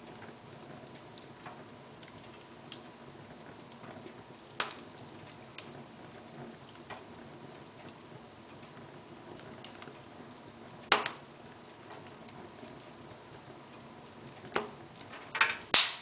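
Log fire burning in a fireplace: a soft steady hiss with scattered small crackles and a few sharp pops, one about eleven seconds in and a quick cluster of the loudest pops near the end.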